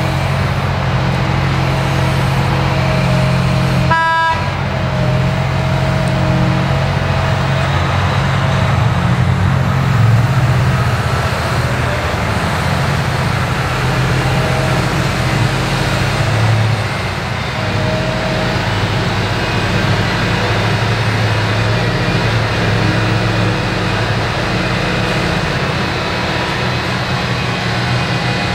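Cat 6020B hydraulic mining shovel and Cat 777 haul truck running steadily under load: diesel engine drone with a wavering hydraulic whine as the shovel dumps and swings. A short horn toot sounds about four seconds in.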